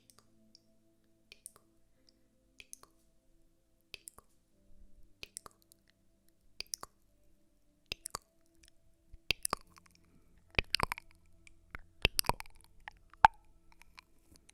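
Close-miked ASMR trigger sounds: scattered soft clicks and short crackly taps, sparse at first and getting busier and louder in the second half, with one sharp click near the end.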